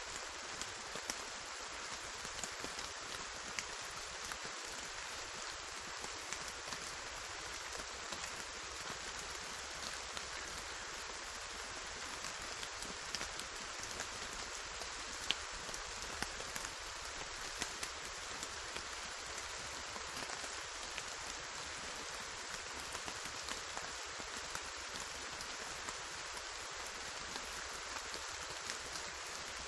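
Rainfall: a steady, even hiss with scattered single drops ticking sharply through it. No thunder is heard.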